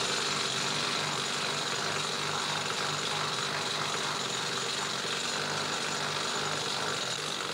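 Air-powered needle gun running continuously against the inside of a steam locomotive's steel boiler shell, chipping off old scale. It makes a steady, unbroken mechanical chatter.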